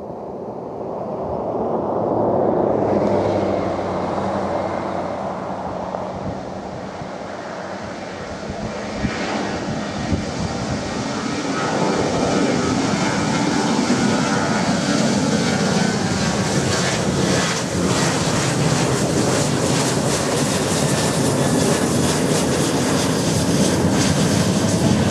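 Boeing 737-800's CFM56 turbofan engines spooling up to take-off thrust over the first few seconds, then running at high power through the take-off roll, with a growing rumble and rattle.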